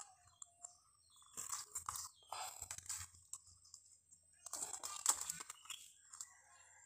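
Crinkling rustle of clear nylon snare line being handled and drawn over a plastic tablecloth, in two spells: one starting about a second and a half in, the other about four and a half seconds in.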